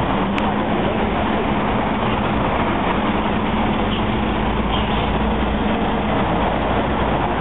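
Busy city street traffic: buses and cars running past, with a steady engine hum that stops about six seconds in.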